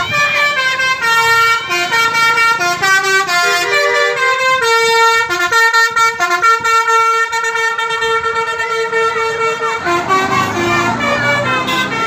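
Bus's Basuri musical air horn playing a 'telolet' tune: a run of quick stepped notes, then about 4.5 s in a long held note with a few brief breaks, and more quick notes from about 10 s in.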